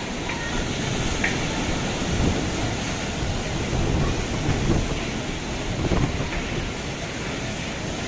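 Typhoon wind and storm waves breaking against a concrete seawall: a continuous rushing noise that swells louder now and then as waves hit.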